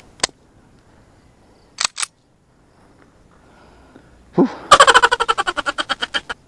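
A few sharp metallic clicks from a pistol being handled, then a rapid burst of gunfire, roughly ten shots a second for about a second and a half, fading toward the end.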